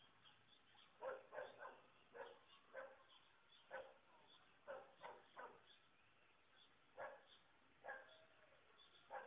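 A dog barking, faint, about a dozen short barks in irregular bunches with a pause in the middle.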